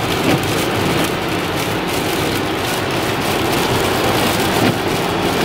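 Steady road noise inside a car driving on a wet highway: tyre hiss from the wet road surface over the engine's drone.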